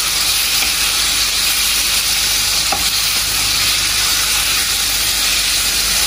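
Raw chicken pieces sizzling steadily in hot oil in a frying pan as they are stirred with a wooden spatula, seared until the meat turns from pink to white.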